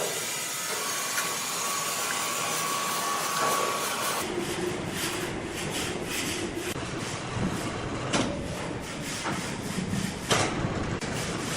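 Sawmill machinery running with a steady mechanical noise; about four seconds in the sound changes to a lower hum with repeated knocks and clatter, as of timber moving through the machine.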